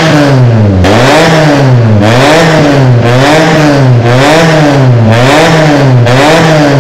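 Honda Civic FD 2.0 VTEC's four-cylinder engine revved hard through a new full stainless-steel exhaust. The revs are held high and drop and climb back again about once a second, as the throttle is lifted and reapplied.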